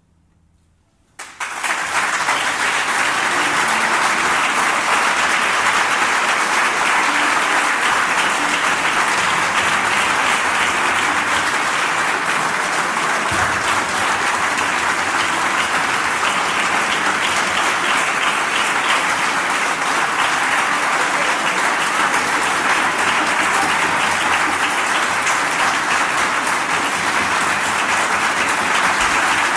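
Audience applause, breaking out suddenly about a second in after near quiet and continuing steadily.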